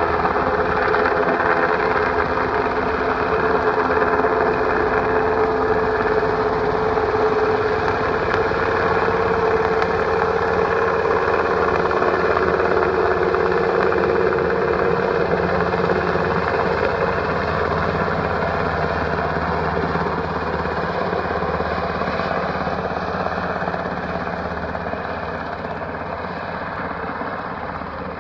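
UH-60 Black Hawk helicopter, its rotor and twin turbine engines running loud and steady, then growing fainter over the last several seconds as it moves off.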